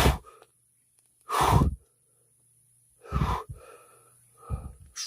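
A man breathing heavily and gasping close to the microphone in fright, four sharp breaths, the loudest about a second and a half in.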